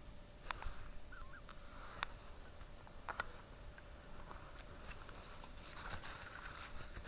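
Faint calls of a distant flock of geese, with a few sharp clicks about half a second, two seconds and three seconds in.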